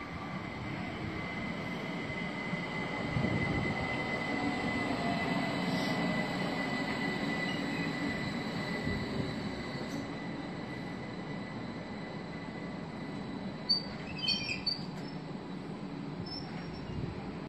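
ÖBB Talent electric multiple unit running past the platform with a steady rumble of wheels on rail and a thin high tone. Its whine falls in pitch a few seconds in, and there are a few brief high wheel squeaks near the end.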